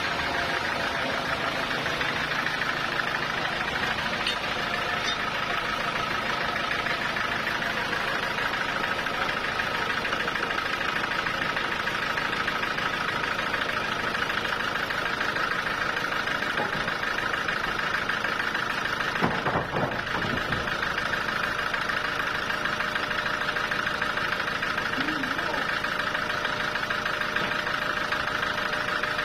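Sawmill machinery running steadily, a continuous even mechanical drone, with a brief louder moment about nineteen seconds in.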